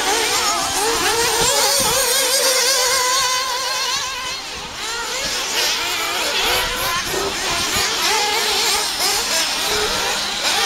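Radio-controlled off-road racing buggies running on a dirt track, their small engines revving up and down in a high, wavering buzz as they accelerate and brake through the corners.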